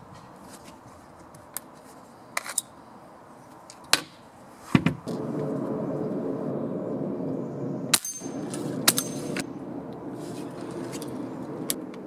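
Pellet pistol firing a string of single shots, sharp cracks a few seconds apart, with pellets striking metal spinner targets; a couple of the hits near the middle ring with a metallic ping.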